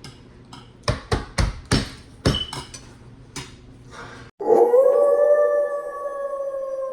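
A dog gives one long, steady howl, starting about four seconds in and dropping in pitch as it ends. Before it comes a quick run of sharp knocks or cracks.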